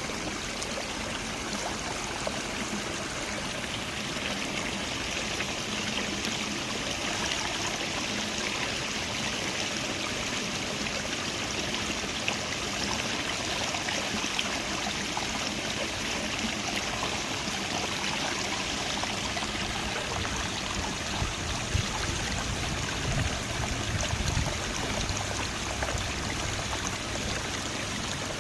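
Creek water flowing and babbling steadily over its bed. A few low rumbling bumps come through about two-thirds of the way in.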